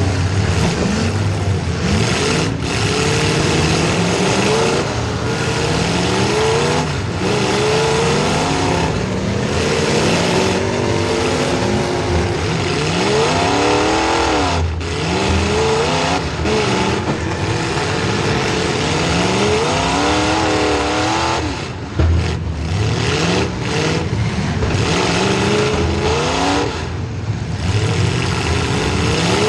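Small-block Chevy V8 in a demolition derby car revving hard, its pitch repeatedly rising and falling as the driver accelerates and backs off. A few sharp bangs cut through, the loudest about two-thirds of the way through.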